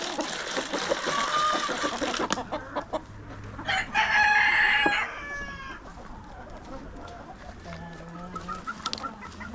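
Chickens clucking, with a rooster crowing once for about a second, starting about four seconds in; the crow is the loudest sound.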